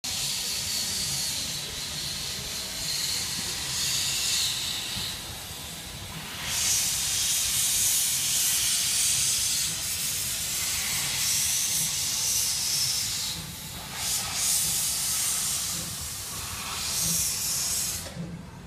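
Steam locomotive Myron H letting off steam: a loud, steady hiss that grows stronger about six seconds in, dips briefly a couple of times and falls away near the end.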